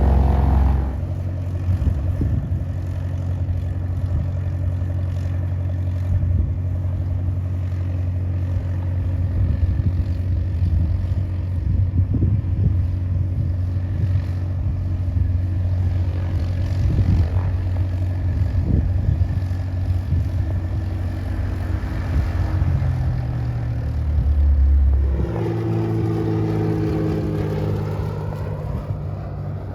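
Propeller aircraft engine running, a steady low drone whose pitch shifts about 25 seconds in.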